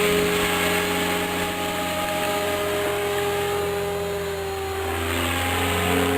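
Electric radio-controlled helicopter (MSH Protos, brushless motor on 6S) in flight: a steady whine from the motor and gears over the rush of the rotor blades. The pitch shifts a little about four to five seconds in.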